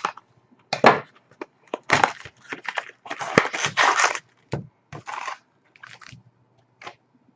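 Trading-card foil packs being torn open and crinkled by hand, with irregular crackling and rustling of the wrappers and cards.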